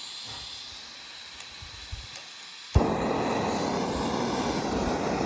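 Backpacking gas stove on an isobutane canister: gas hissing from the open valve with a few faint igniter clicks, then the burner lights with a sharp pop a little under three seconds in and runs with a steady, much louder rushing flame.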